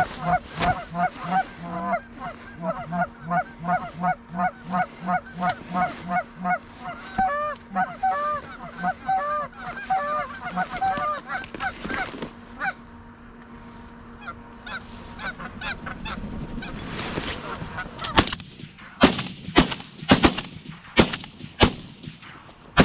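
Goose honking, loud and rapid at about two to three honks a second, for the first half, then dying away. Near the end comes a volley of about ten shotgun blasts in four seconds from several guns firing at geese coming into the decoys.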